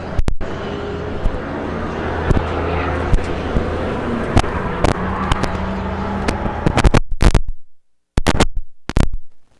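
Crackling and sharp pops from a loose, disconnecting camera microphone, over a steady low hum. The sound cuts out entirely twice near the end.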